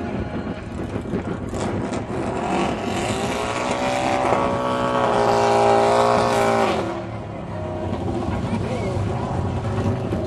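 Harley-Davidson Destroyer drag bike's V-twin engine revving: the pitch climbs over about two seconds, holds high for a couple of seconds, then cuts off suddenly. Crowd voices are heard throughout.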